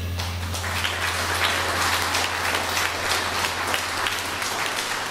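Audience applauding, breaking out as the jazz band's final chord stops: applause for the end of the piece.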